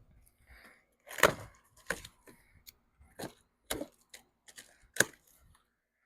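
A handful of sharp clicks and knocks from a storage box on a mini skid steer being opened and rummaged through, the loudest about a second in.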